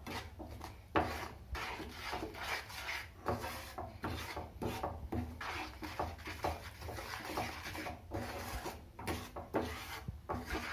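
A plastic spatula scraping and stirring a thick milk-and-milk-powder batter around a nonstick frying pan, in uneven strokes about two a second, working freshly added powdered sugar in so no lumps form.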